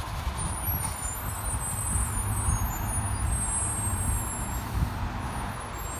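Sterling LT7500 rear-loader garbage truck's diesel engine running with a steady low rumble as the truck creeps along the street.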